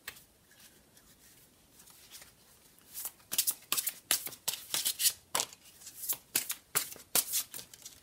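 Deck of tarot cards being shuffled by hand: faint handling at first, then from about three seconds in a quick run of crisp card slaps, several a second.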